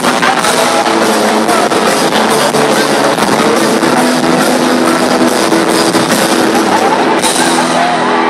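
Live rock band playing loud amplified music with guitar and a steady drum beat.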